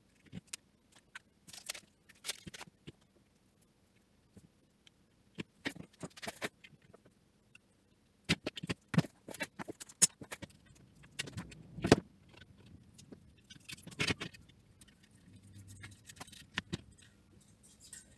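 Handling noise from desoldering work: scattered light clicks, taps and scrapes of a soldering iron, needle-nose pliers and a circuit board on its aluminium heatsink plate against a work mat. Sparse at first and busier in the second half.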